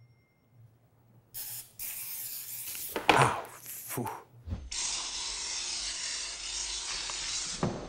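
Aerosol non-stick cooking spray hissing onto the plates of a preheated waffle iron. A couple of short bursts come first, then a steady spray lasting about three seconds.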